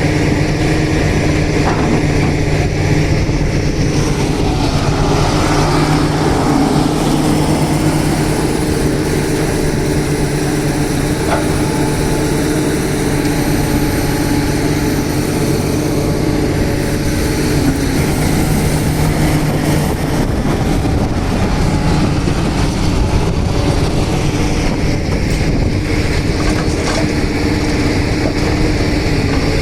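Diesel engine of a JCB 3DX backhoe loader running steadily as the machine works, with a few light knocks.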